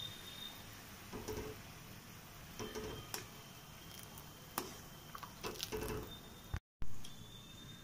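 Sugar syrup with crushed cardamom bubbling in a pan as a steel ladle stirs it, with soft scrapes and light clicks of the ladle on the pan. A short louder knock comes about two-thirds of the way in, just after a brief gap.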